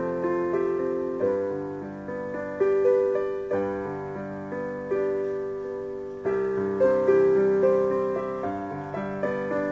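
Slow, gentle piano music: single notes and chords, each struck and then fading.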